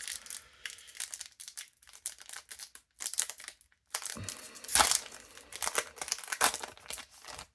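Foil booster pack wrapper crinkling and trading cards being handled, a run of irregular rustles with the loudest crackle about five seconds in.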